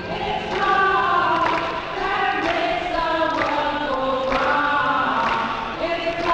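A group of women singing together in a lively chorus, with hand claps about once a second.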